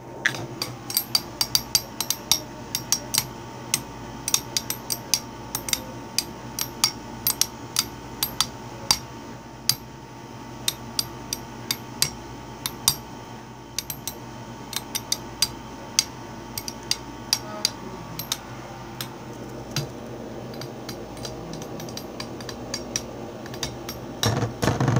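Two metal-rimmed Beyblade spinning tops whirring in a plastic stadium with a steady hum, clashing and hitting the walls in frequent, irregular sharp clicks, a few a second.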